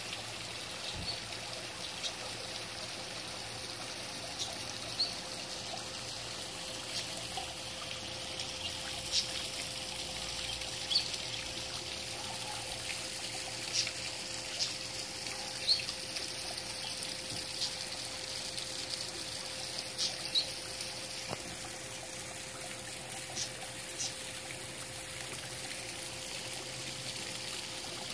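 Small rock waterfall trickling and splashing into a garden pond: a steady wash of falling water, with short, sharp high sounds standing out every second or two.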